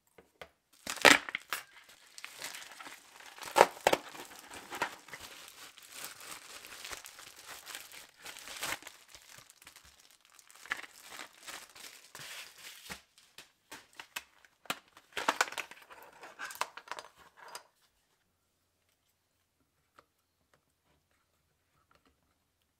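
Clear plastic blister packaging of a replacement Zune battery crinkling and crackling as it is handled, with a few sharp loud cracks. It stops about three-quarters of the way through, leaving only a few faint ticks.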